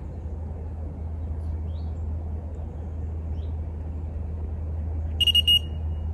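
Electronic carp bite alarm sounding a quick burst of a few high beeps about five seconds in. It is registering a liner, fish knocking against the tight line, which the angler guesses is smaller fish messing around on the line.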